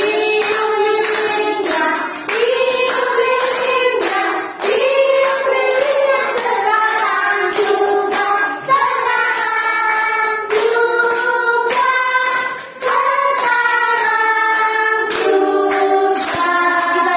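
A group of young children and a woman singing a birthday song together, clapping along to the beat.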